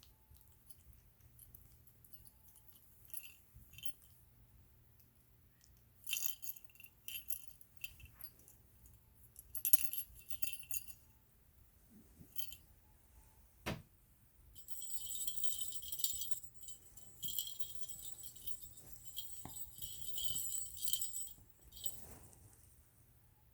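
Small metal jingling, like a bell toy or tags being shaken, in short bouts and then a longer continuous run in the second half, with a single sharp knock just before it.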